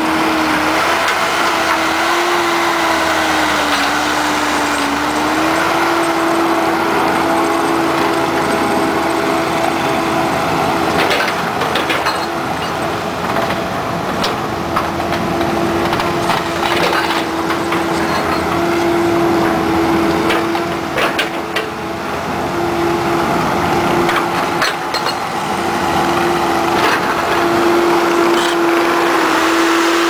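Diesel engine of a Case 450CT compact track loader running under load, with a steady high whine that sags in pitch about four seconds in and then recovers. Scattered knocks and cracks are heard as the machine works and travels over gravel.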